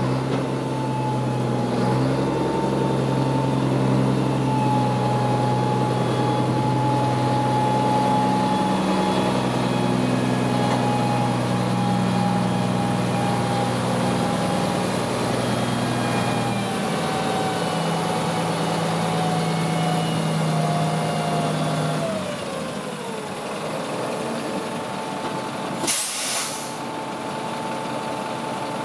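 1986 Freightliner C112 dump truck's diesel engine running, its pitch slowly easing down before it settles to a quieter idle about three quarters of the way through. A short, sharp hiss of air from the truck's air brakes comes near the end.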